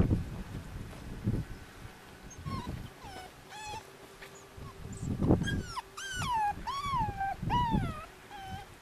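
Pit bull puppy whining in a run of high, wavering cries that rise and fall, with a few dull low thumps between them. The owner takes the crying for wanting out of the dog wheelchair rather than for pain.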